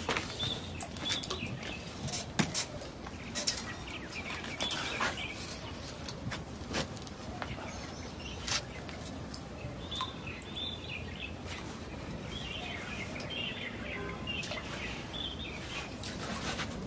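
Small birds chirping and twittering, with scattered sharp clicks and knocks, most of them in the first half.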